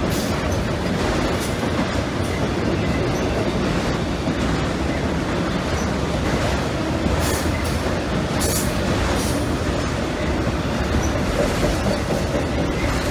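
Freight train of autorack cars rolling past, with a steady rumble and rattle of steel wheels on the rails. A few short sharp noises come about seven to nine seconds in.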